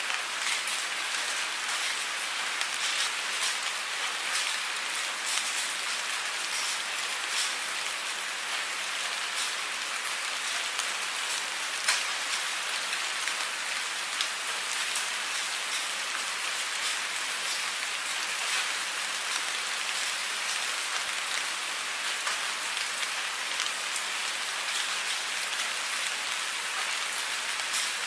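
Steady rain falling, a dense even hiss with many small drop ticks throughout and one sharper, louder drop about twelve seconds in.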